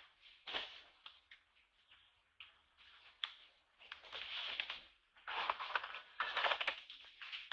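Irregular rustling and crackling with scattered sharp clicks, growing louder in bursts from about four seconds in.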